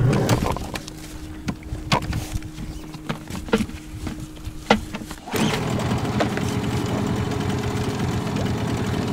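A motorboat engine idling with a few knocks, then throttled up about five seconds in and running steadily louder at a higher pitch as the boat gets under way.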